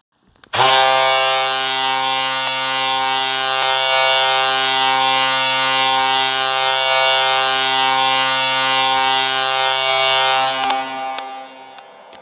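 Laval Rockets hockey goal horn sounding one long, low, steady blast of about ten seconds, which stops and dies away in echo over about a second.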